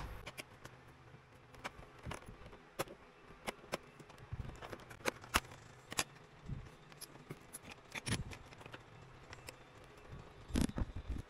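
Scattered light clicks and taps of hands and small tools working on a laptop, irregular and unhurried, with a louder cluster of clicks about ten and a half seconds in.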